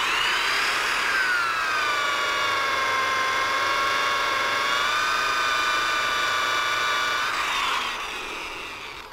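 Electric drill spinning a cloth buffing wheel charged with Tripoli compound against a small wooden piece turning the opposite way on a Jet mini lathe, the first buffing stage: a steady high motor whine with a rushing hiss. The pitch sags slightly about a second in, then falls as it winds down near the end.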